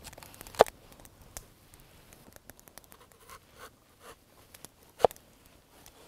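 Kitchen knife cutting a lotus root on a wooden board: faint crisp cutting and scraping, with two sharp knocks of the blade on the board, one about half a second in and one near the end.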